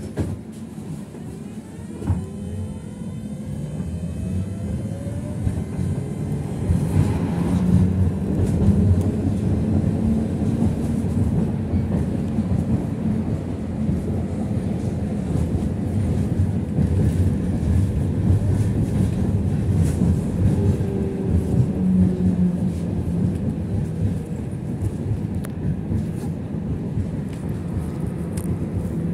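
Belkommunmash BKM 60102 tram heard from inside the car as it pulls away: a click about two seconds in, then a whine that rises in pitch as it speeds up. The running noise of wheels on rails grows louder over the first eight seconds or so, then holds steady as the tram runs along.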